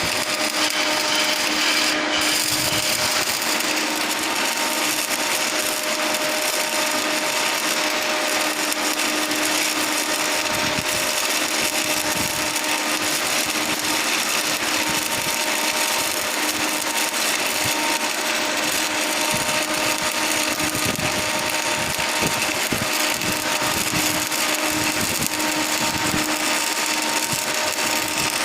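Electric arc welding on steel pipe: a steady crackling hiss that runs without a break, with a faint steady hum underneath.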